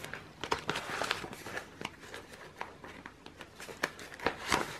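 Paper banknotes and a clear plastic binder envelope rustling as a stack of cash is handled and slipped into the envelope, in short irregular rustles and taps.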